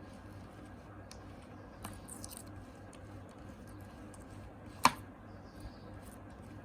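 Small objects being handled by hand: faint clicks and light rustling, with one sharp tap about five seconds in, over a low steady hum.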